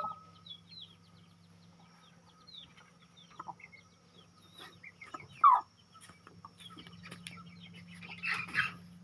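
Chickens clucking and chirping, scattered short calls with one louder squawk about five and a half seconds in, over a faint steady low hum.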